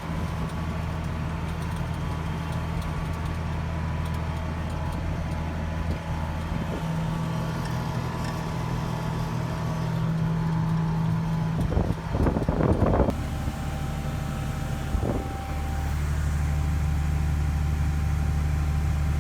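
Combine engine running at a steady hum during harvesting. About twelve seconds in there is a short burst of rattling knocks, with a single knock a couple of seconds later.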